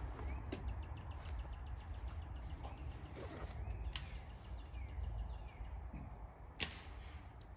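Air rifle shot: one sharp crack about six and a half seconds in, the loudest sound, with a fainter sharp click near four seconds. Under it run a steady low rumble and small birds chirping in short rising notes.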